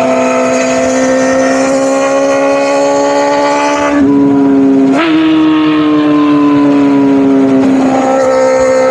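Kawasaki Ninja ZX-4RR's inline-four engine through a newly fitted aftermarket exhaust, running high in the revs. The pitch climbs slowly, breaks sharply about five seconds in, then slowly falls as it eases off.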